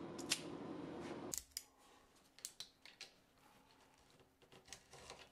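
Faint, scattered clicks and scrapes of a small metal blade trimming a 3D-printed plastic part, after a short stretch of steady background hum that stops about a second and a half in.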